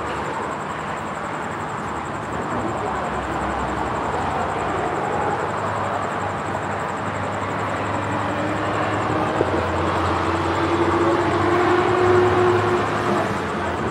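Street traffic: cars driving past on a multi-lane road, a steady rush of tyre and engine noise. It swells as a car comes close near the end, with its engine hum at its loudest.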